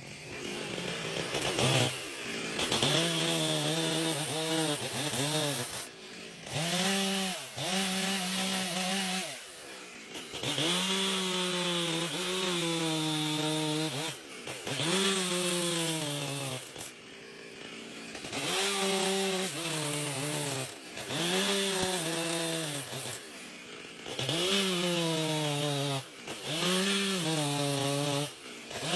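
Chainsaw cutting through wood in repeated bursts at high revs, dropping back briefly between them; within each burst the engine pitch sags under the load of the cut and climbs again as it frees up.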